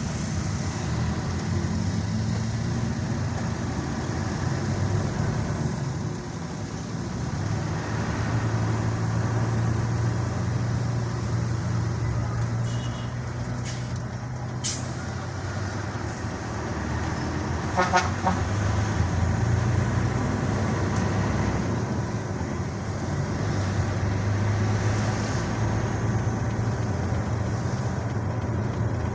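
Steady engine hum and road noise of a vehicle driving along a highway, heard from inside the cabin, with a brief horn toot about 18 seconds in.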